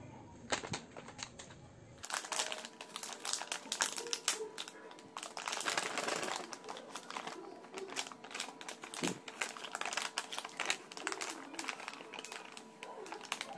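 Clear plastic zip-lock bag crinkling and crackling as hands squeeze it and pull its seal open, with many irregular small clicks.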